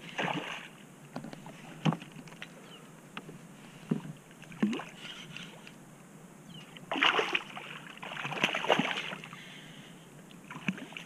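Hooked redfish splashing and thrashing at the surface beside a kayak. There are bursts of splashing about a second in and again between seven and nine seconds in, with a few sharp knocks in between.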